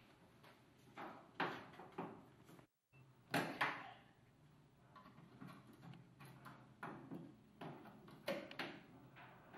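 Irregular knocks and clunks of metal parts being handled and test-fitted by hand in a car's footwell, with a pair of louder knocks about three and a half seconds in.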